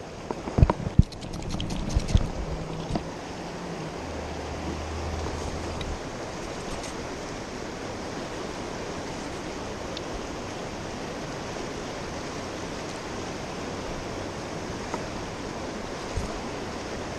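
Fast, shallow river current rushing steadily past a wader standing in it. A few sharp knocks and bumps come in the first couple of seconds.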